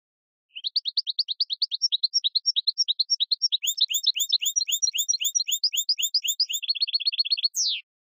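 A rapid series of clean, whistled bird-like chirps, about ten a second, quickening into a fast trill near the end and closing with a single quick downward sweep, with no background noise at all.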